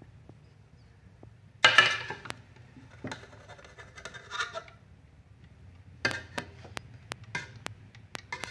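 A cooking spoon scraping and clinking against a pot as freshly steamed chicken pulao is turned and mixed. The loudest scrape comes about two seconds in, and a run of light taps follows near the end.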